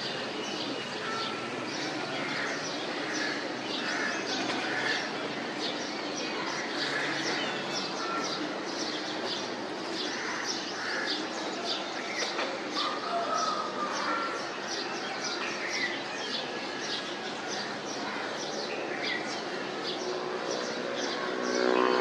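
Many small birds chirping and calling over a steady hiss of background noise, with rapid repeated high chirps throughout. A louder, lower pitched sound starts just at the end.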